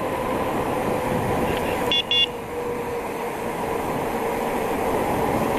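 Steady rushing and humming of a bicycle coasting fast down a long hill, wind and tyre noise on the mic, with two short high beeps about two seconds in.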